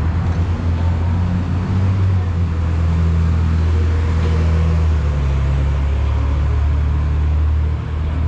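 Road traffic with a large vehicle engine giving a loud, low, steady drone, its pitch shifting a little now and then.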